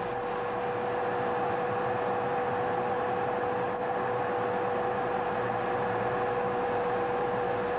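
Steady flight-deck noise of a jet aircraft in flight: an even rush of air with a constant mid-pitched hum running through it.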